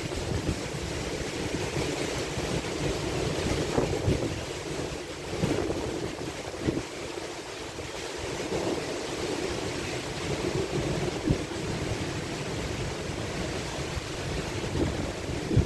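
Thunderstorm downburst: heavy rain and gusting wind make a steady rushing noise, with gusts buffeting the microphone now and then.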